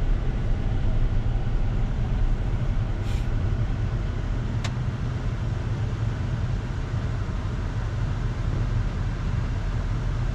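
Steady low rumble of a vehicle driving along: engine and road noise, even throughout, with a couple of faint ticks partway through.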